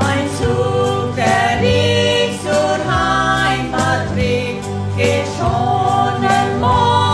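Two women singing a German Christian song over an instrumental backing with a steady beat.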